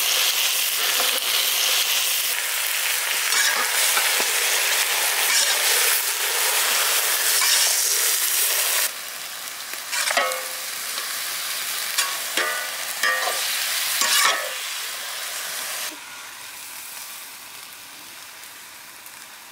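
Raw turkey meat sizzling loudly as it goes into hot sesame oil in a kadai. About nine seconds in the sizzle drops, and a metal ladle scrapes the pan several times as the meat is stirred; the sizzle is quieter near the end.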